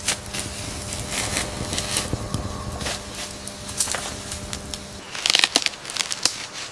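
Irregular sharp crackles and clicks over a steady low hum. About five seconds in the hum drops away and a quick cluster of louder clicks follows.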